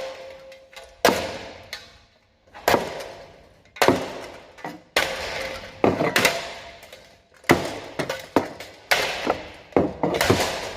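A Clipsal ceiling fan being smashed apart with repeated hard blows, about ten strikes roughly a second apart. Each strike lands with a crash followed by a fading clatter of broken pieces.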